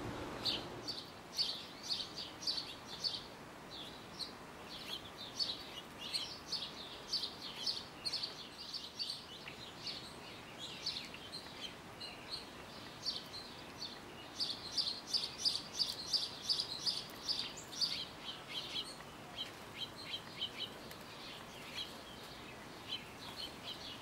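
Small songbirds chirping: many quick, high chirps in dense runs, busiest around the middle and thinning toward the end.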